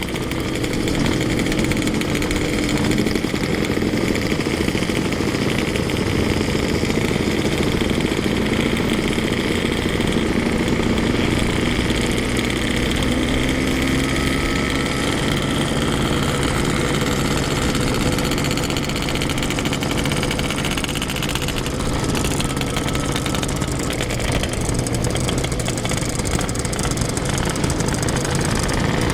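Yamaha RX-King's 135cc single-cylinder two-stroke engine running as the motorcycle rides along, its pitch rising and falling gently with the throttle.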